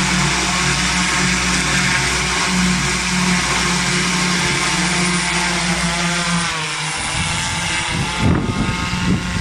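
Large multirotor drone's electric rotors whirring steadily as it lifts off and hovers, their pitch shifting about two thirds of the way through. Near the end a few loud low rumbles break in.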